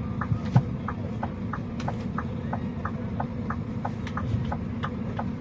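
Fire in an overturned coal truck's wreck crackling, with irregular sharp pops about two a second, the loudest about half a second in, over a steady low rumble.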